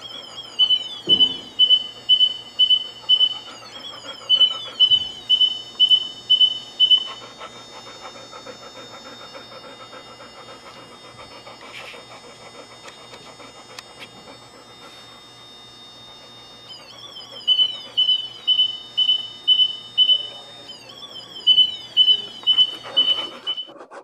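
Electronic beeper sounding runs of short high beeps, about two and a half a second, each run opening with a quick falling chirp. One run lasts from the start to about 7 seconds in, and a second run comes near the end, with only a faint hum between them.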